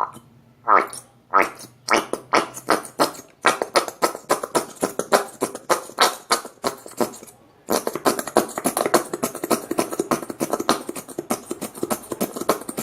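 Squeeze bottle of white glue being emptied into a bowl, the glue and air spluttering out of the nozzle in squelchy squirts. The squirts come a few times a second at first and run together into a nearly continuous splutter after about eight seconds.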